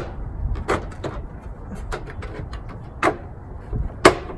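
Plastic headlight cover on an NA Mazda Miata knocking and clicking against the headlight housing as it is pressed into place: a few sharp knocks, the loudest near the end, over a steady low background rumble.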